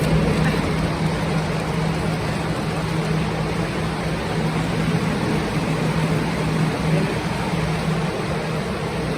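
Plastic blower fans (air movers) running steadily: a constant low hum over a rush of air, blowing on a water-soaked ceiling to dry it.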